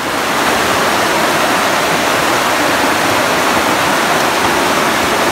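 Creek water rushing over rock ledges at a waterfall cascade: a loud, steady rush.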